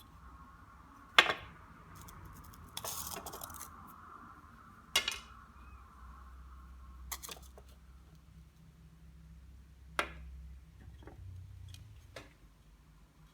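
Hard objects being handled and set down: a handful of sharp knocks and clinks spread irregularly, over a faint steady hum.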